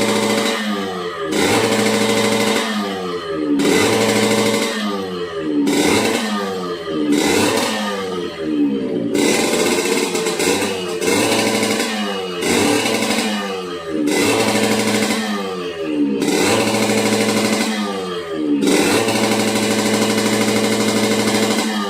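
Yamaha RX-King's two-stroke single-cylinder engine being revved over and over, held high and then falling back every second or two, with the rough snoring growl ('ngorok') it is known for.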